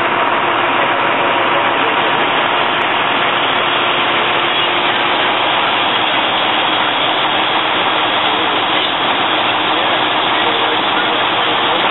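Fire engine's engine running steadily, a loud even drone with no breaks.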